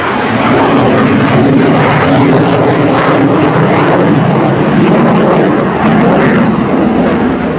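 Saab JAS 39 Gripen fighter's single Volvo RM12 turbofan, loud jet noise from the aircraft flying a display manoeuvre overhead. It swells at the start and then holds steady and heavy.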